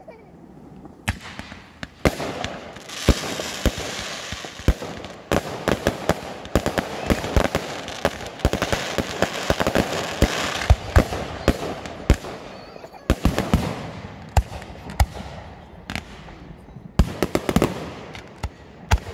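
Aerial fireworks display: shells bursting in quick succession, sharp bangs over a continuous rushing hiss. The bangs start about a second in, come thickest through the middle, thin out briefly, then pick up again near the end.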